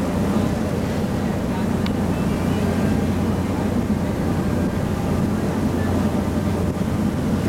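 Steady low engine drone of a sightseeing boat under way, running at a constant pitch and level.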